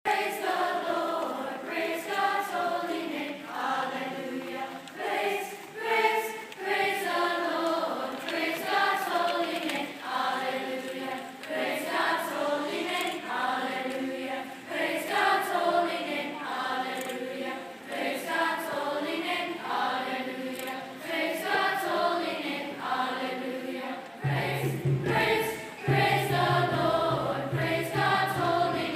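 Middle-school choir of young mixed voices singing together in parts. A low steady note joins underneath about four seconds before the end.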